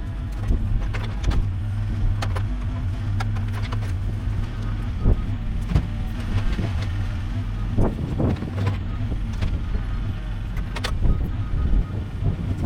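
Mini excavator's engine running steadily, with frequent short knocks and clunks over it.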